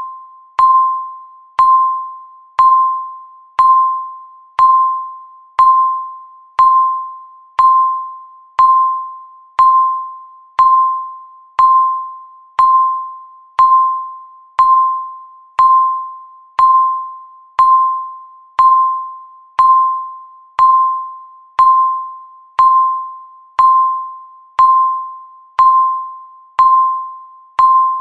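Countdown timer's electronic tick tone, one clear chime-like note struck once a second and fading away before the next, marking off the seconds.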